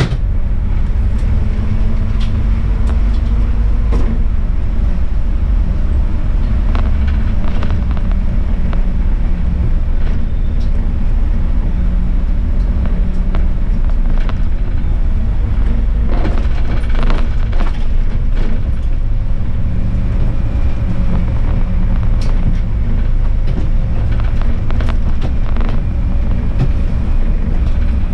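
Bus driving on winter city roads: its engine running steadily under heavy road noise, with scattered light rattles and clicks throughout.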